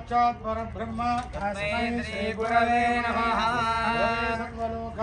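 Hindu mantra chanting in Sanskrit: voices reciting in a sing-song melody, holding notes on a few steady pitches.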